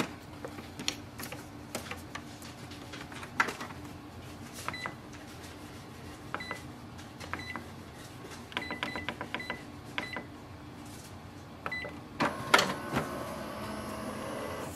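Clicks from handling the lid and paper of an Epson inkjet all-in-one printer, then a run of short high beeps as buttons on its control panel are pressed. About twelve seconds in, the printer's mechanism starts up and keeps running as the print job begins.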